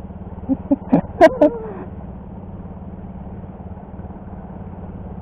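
A man's few brief hooting vocal sounds about a second in, over a steady low hum.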